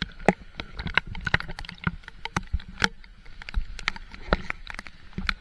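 Water splashing, with many irregular sharp taps and clicks.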